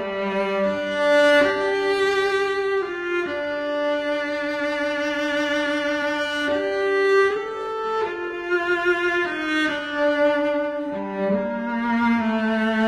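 Background music: bowed strings, violin and cello, playing slow, long-held notes in several parts.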